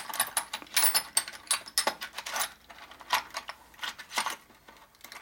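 Steel and carbide cutting tools clinking and rattling against each other as fingers rummage through a small plastic bin of them: an irregular run of light metallic clicks.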